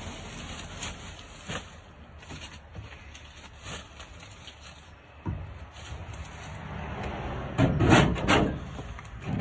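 Hand scraper rasping over a sheet-metal van panel in several quick strokes near the end, scraping off old glued-on insulation. A few light knocks and clicks come before it.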